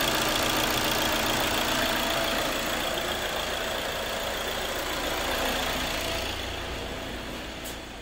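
Freshly rebuilt Audi 2.0 TDI four-cylinder diesel (engine code DESA) idling steadily just after its first start, running cleanly by the owner's account. It grows quieter near the end, where there is a single click.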